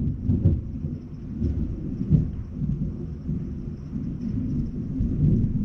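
Thunder rumbling and rolling, with louder peals swelling about half a second in, around two seconds in and again near the end.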